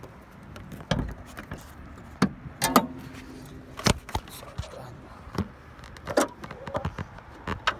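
Clicks, clunks and handling noises as the hood of a 1989 Oldsmobile Cutlass Ciera wagon is unlatched and lifted, with a brief squeak about three seconds in.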